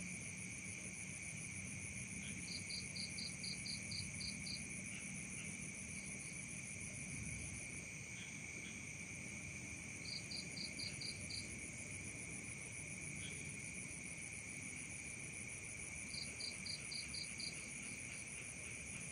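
Night chorus of crickets and other insects trilling steadily at several pitches at once. Three times, about 2.5 seconds in, around 10 seconds and around 16 seconds, a higher call of roughly seven evenly spaced chirps, about three or four a second, sounds over it.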